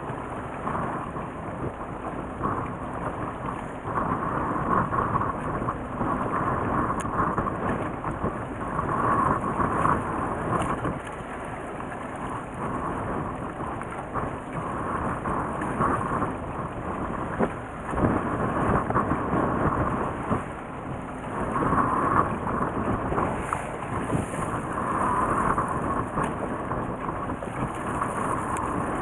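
Steady rumbling noise that swells and eases every few seconds: wind buffeting the microphone on a fishing boat out on the water.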